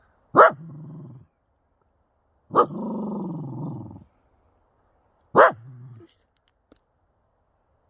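A dog barking three times, each sharp bark trailing into a pitched growl; the middle one draws out for over a second. It is warning at people approaching in the dark.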